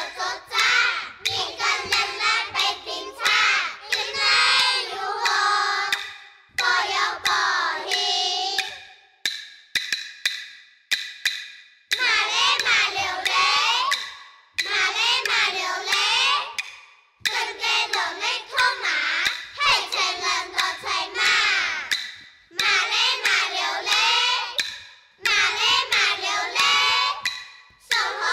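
Children's voices singing a Zhuang folk song (shan'ge) in drawn-out phrases of a few seconds each, with wavering held notes and short breaths between phrases, over sharp percussive taps.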